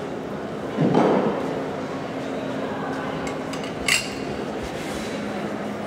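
A dull thump about a second in, then a single sharp metallic clink a few seconds later, over a steady low room hum.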